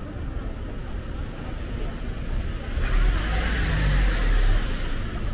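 A motor vehicle passing close by on the street: a rush of engine rumble and tyre noise that swells about three seconds in and fades near the end, over a steady background of traffic.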